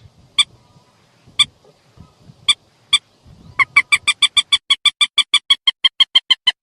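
Recorded mandar (rail) lure call: sharp, clipped notes, a few spaced about a second apart, then from about halfway a fast, even run of about six notes a second.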